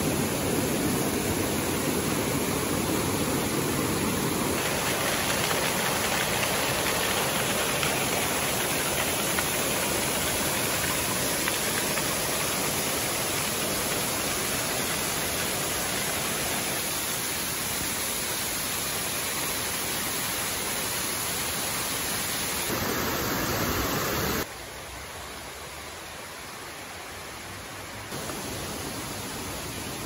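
Rushing water of a mountain stream spilling over rocks and a small waterfall: a steady, loud rush that changes level in steps, dropping noticeably quieter about 24 seconds in and rising a little near the end.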